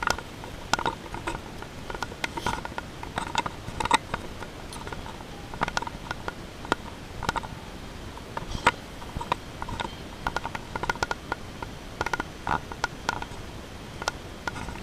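Irregular clicking and rattling, several knocks a second, from a handheld camera being carried while walking, over steady background noise.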